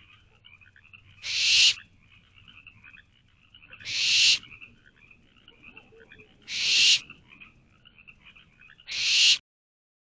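Barn owlets giving food-begging hisses: four harsh, drawn-out hisses of about half a second each, roughly every two and a half seconds, each swelling louder toward its end.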